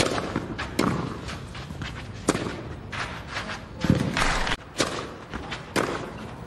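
Tennis balls being struck by rackets in a baseline rally on a clay court. There are sharp pops about every second to second and a half, six in all, over the low hum of the crowd.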